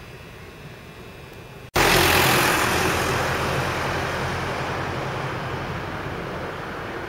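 Quiet background outdoors, cut off abruptly just under two seconds in. Then a loud rush of a road vehicle passing close, fading steadily as it moves away.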